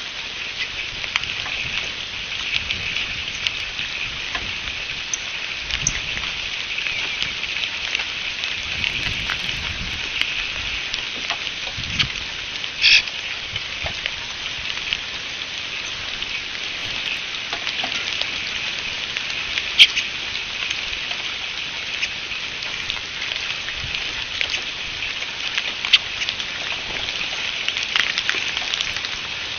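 Steady patter of rain with small drops ticking sharply, and short, soft calls of Eastern Bluebirds over it.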